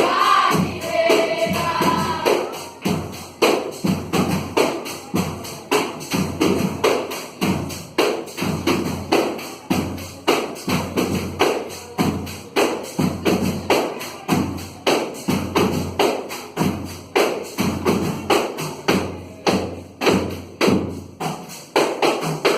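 Percussion-led music: a steady beat of low drum thumps and sharp strokes, about two a second, with a short stretch of singing voices at the start.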